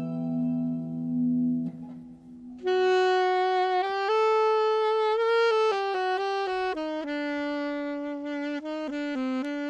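Alto saxophone playing a slow melody that comes in about two and a half seconds in, after a held chord dies away. The notes come quicker near the end.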